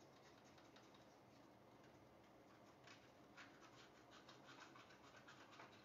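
Near silence: room tone with a few faint scratches and ticks, somewhat more frequent in the second half.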